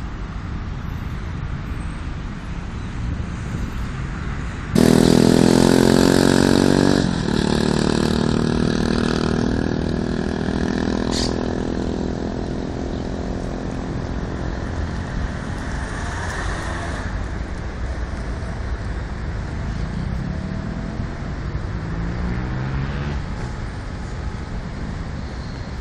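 Road traffic with wind on the microphone. About five seconds in, a loud vehicle engine note starts suddenly and is loudest for about two seconds. It then fades over several seconds as further vehicles pass with slowly shifting pitch.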